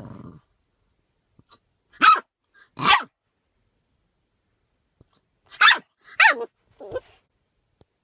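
Puppy yapping and barking at its own hiccups: a low growl at the start, then five short, high barks, two a second apart and then three in quick succession, one of them sliding down in pitch.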